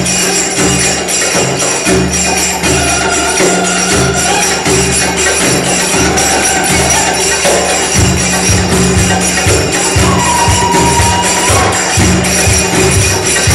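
Live music with a steady drum beat and a plucked lute, overlaid by the dancers' brass finger cymbals (zills) ringing in a quick, even rhythm.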